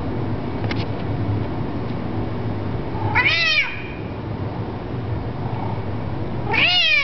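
Bengal cat meowing twice, about three seconds apart, each a short call that rises and then falls in pitch; the second comes near the end.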